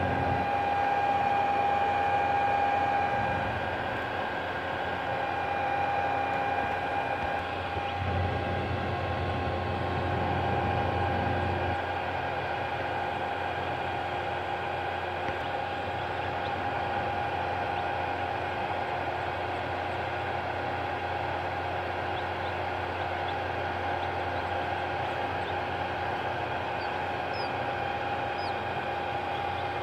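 Steady mechanical hum with hiss and a few steady tones, like a fan or motor running, slightly louder in the first dozen seconds and then even.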